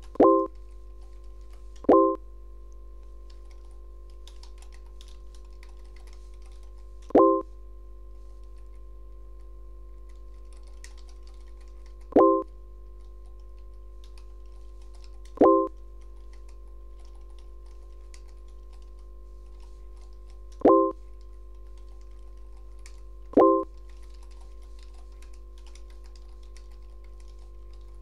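Computer keyboard typing in light clicks, broken seven times by a short electronic chat-message chime, once for each message sent or received. A steady low hum runs underneath.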